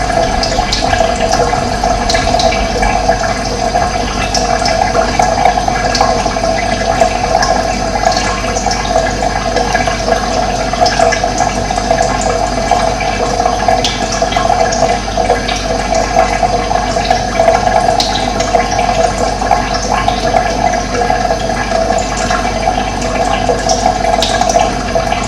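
Steady flowing water, a continuous rushing sound without a break, with faint short bird chirps scattered over it.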